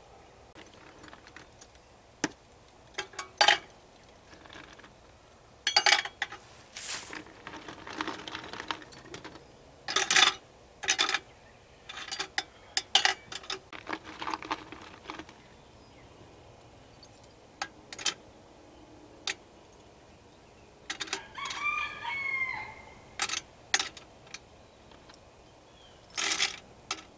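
Pieces of scrap lead sprue dropped by hand into a Lee Production electric lead-melting pot, clinking irregularly against the steel pot and each other as it fills. About 21 seconds in, a rooster crows once.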